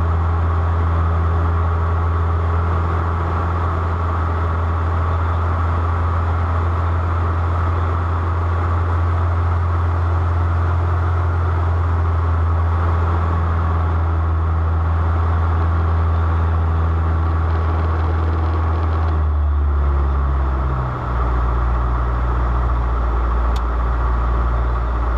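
Steady low engine drone of a moving vehicle, heard from inside; its pitch shifts about twenty seconds in.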